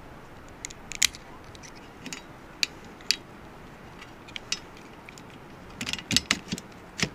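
Plastic clicks of a replacement beam wiper blade's connector being handled and pushed onto the wiper arm's hook: separate single clicks, then a quick cluster of louder clicks about six seconds in.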